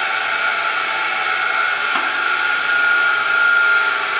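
Steady whirring machine noise with a high whine, and a single short knock about halfway through.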